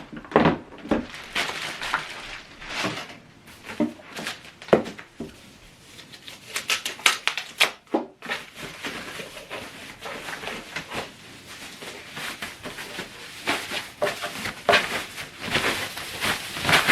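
Handling noise from unboxed soundbar parts being moved and set down: irregular knocks, clicks and rustling.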